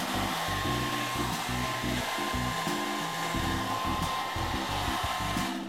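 Handheld hair dryer blowing steadily during a blow-dry, a constant rush of air with a thin steady whine; it cuts off suddenly near the end.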